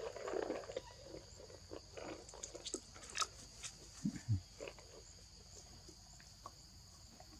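Faint scattered rustles and crackles of a macaque moving and foraging through dry leaves and grass, over a steady high insect drone. A short low falling grunt comes about four seconds in.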